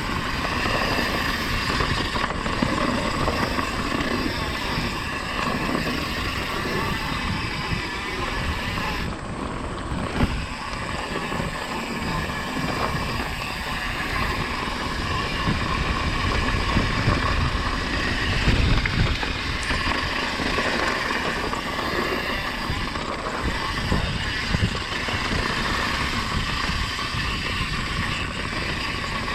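Mountain bike descending a dirt trail: wind rushing over the microphone and tyres rumbling over the ground, with a few sharp knocks from bumps.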